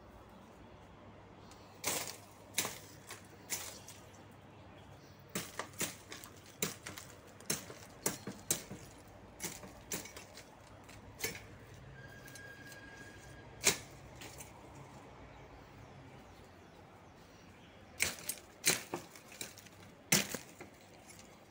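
Wide metal chopping blade hacking woody shrub branches: sharp chops come irregularly, some in quick runs of two or three, with pauses between.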